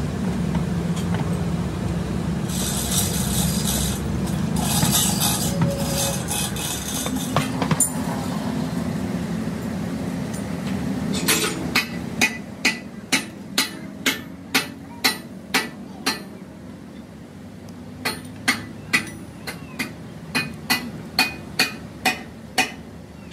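Hammer striking the steel yoke of a truck drive shaft's universal joint: a run of sharp metallic blows about two a second, starting about halfway through, pausing briefly, then resuming. A steady low rumble runs under the first half.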